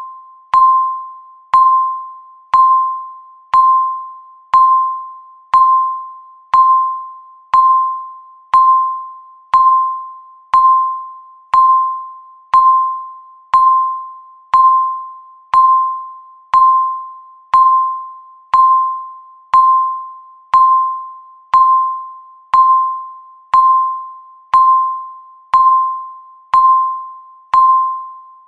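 Countdown timer's electronic beep, one per second: a single mid-pitched, bell-like tone that strikes sharply and fades away before the next, marking each passing second.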